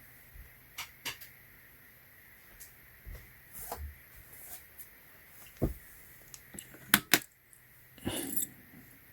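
Scattered light clicks and knocks of handling, then two sharp clicks close together about seven seconds in, fitting a wall light switch being flipped off so the night light's sensor can activate. A short rustle follows about a second later.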